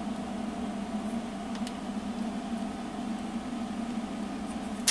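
Steady low hum and hiss from a tube signal tracer's speaker with the gain turned up while it warms up, with one sharp click right at the end as a knob or switch on the tracer is worked.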